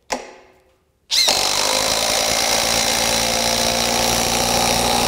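DEWALT Atomic compact impact driver hammering a long lag screw down into a wooden beam under heavy load. A single sharp click comes just after the start, then the driver starts about a second in and runs steadily.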